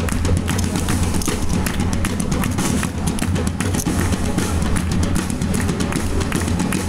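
A group of hand drums played live in a fast, dense rhythm, with many sharp strokes over a heavy low boom.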